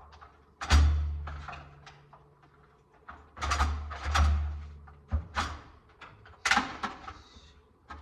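Drum kit played in scattered single hits at a sound check: kick-drum thumps with cymbal splashes that ring out and fade, and a low bass note sounding under several of them. The hits come at uneven intervals, about five in all, not in a steady beat.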